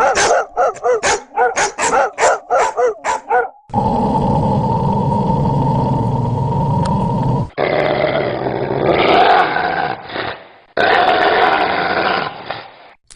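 Edited clips of dogs: a fast run of about a dozen sharp barks over the first three and a half seconds, then a steady low growl lasting about four seconds, then two longer stretches of rougher growling. Each clip starts and ends with an abrupt cut.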